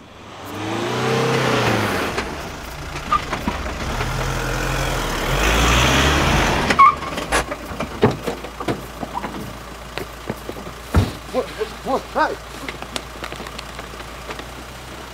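A van drives up and pulls in at the kerb, its engine and tyre noise swelling and then cutting off sharply about seven seconds in. A scuffle follows: scattered knocks, clicks and short muffled sounds, with a man saying "What?" near the end.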